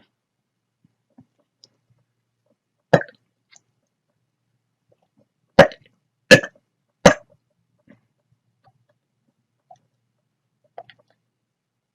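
A person hiccuping: one loud, short hiccup about three seconds in, then three more in quick succession, each about three-quarters of a second apart.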